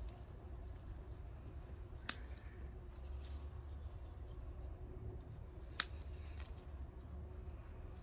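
Scissors snipping through chilli pepper stems twice: two sharp clicks, about two and six seconds in.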